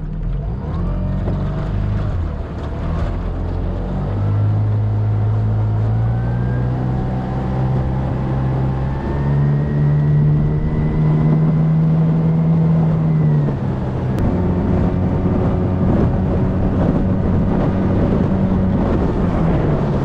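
Yamaha two-stroke outboard motor running with the boat under way. Its pitch steps up about four seconds in and again near the middle as the throttle opens, then eases back a little past halfway. It runs steadily, "rock solid".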